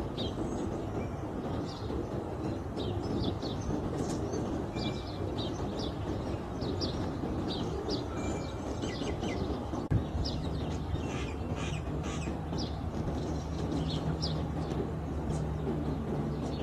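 Short high bird chirps, repeated irregularly over a steady low rumble. About ten seconds in there is a click, and then a steady low hum sets in.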